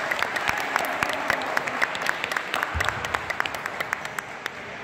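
Scattered clapping from a small crowd of spectators in an echoing sports hall, thinning out toward the end, with a single dull thump about three seconds in.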